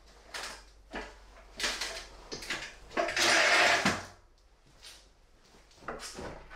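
Handling noise from metal ceiling framing work: a string of short scrapes and knocks, with one louder scrape lasting about a second around three seconds in.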